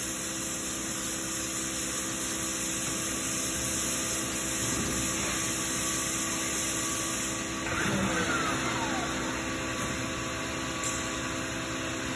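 Steady mechanical hum and hiss with a few constant held tones, a little louder in the middle, and faint falling squeaky glides about eight seconds in.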